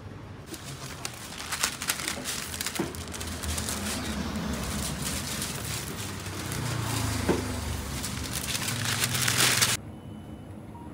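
Crinkling and rustling of packaging as fruit and a receipt are handled at a shop counter, with many small crackles, cutting off abruptly near the end.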